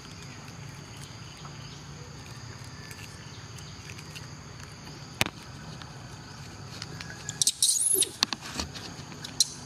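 A macaque gives a brief shrill squeal about seven and a half seconds in, the loudest sound here. Over a steady high-pitched background whine, with a few sharp clicks: one about five seconds in and more near the end.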